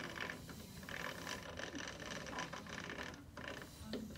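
A pet scratching and pawing at its bedding: a continuous rapid rasping in short clumps with brief pauses.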